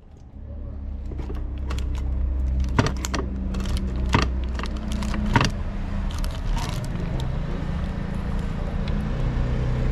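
A steady low mechanical hum, like a running engine, with sharp metallic clinks and knocks over it, the loudest about three, four and five and a half seconds in.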